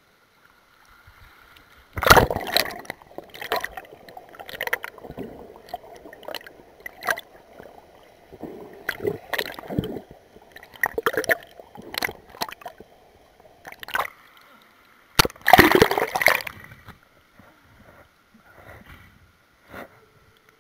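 Pool water splashing and sloshing as the camera is plunged under the surface and brought back up, with muffled underwater gurgling and short knocks in between. The loudest splashes come about two seconds in and again around fifteen to sixteen seconds in.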